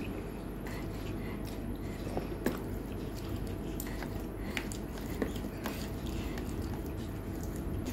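Fingers mashing and mixing rice with curry on a plate: soft squishing with scattered light clicks, over a steady low hum.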